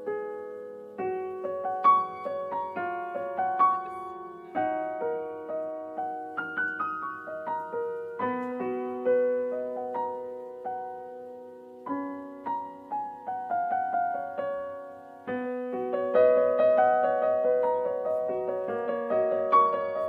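Background piano music: struck notes and chords, each left to ring and fade.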